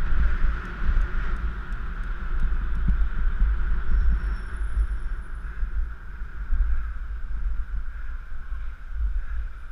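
Wind buffeting a GoPro Hero3's microphone while cycling along a city street: a deep, uneven rumble over muffled road and traffic noise.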